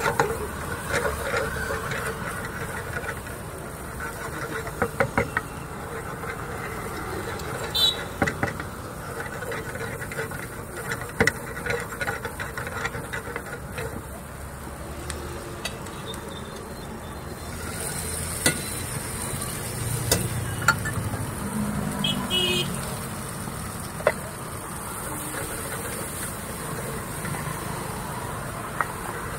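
Wooden spatula stirring corn in a metal frying pan, with a light sizzle and sharp knocks of the spatula against the pan every few seconds.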